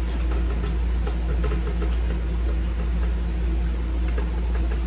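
A steady low hum, with a few faint clicks and rustles of food being handled at the table.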